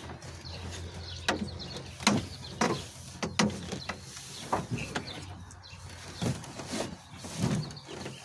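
Irregular knocks, clicks and creaks, about ten of them spread across a few seconds, as a person climbs partway into a pickup truck's engine bay, with body, hands and shoes bumping and pressing against the truck's metal. A faint steady low hum runs underneath.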